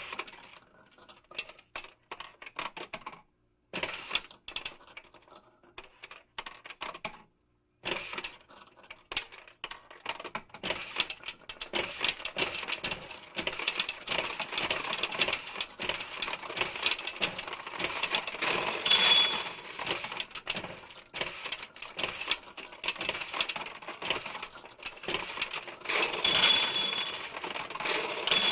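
Pachinko machine: steel balls rattling and clicking rapidly through the pins, in three runs separated by short pauses, the last run busiest. A brief ringing tone sounds about 19 seconds in and again near the end.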